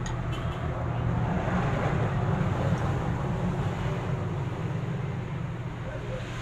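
Low motor-vehicle engine hum that swells louder for a couple of seconds and then eases off, as a vehicle passing by.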